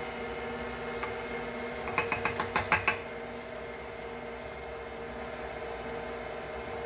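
KitchenAid stand mixer running steadily, beating pound cake batter. About two seconds in comes a quick run of about seven sharp taps.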